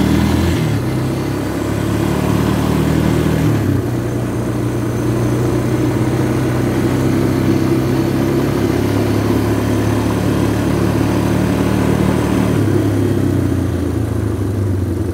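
Yamaha four-wheeler (ATV) engine running while being ridden. Its pitch rises near the start, drops about four seconds in and shifts again near the end as the speed changes.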